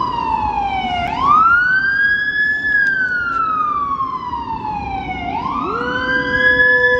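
Emergency vehicle siren on a slow wail, rising quickly and falling slowly, twice. About five and a half seconds in, a dog joins with a long, steady howl.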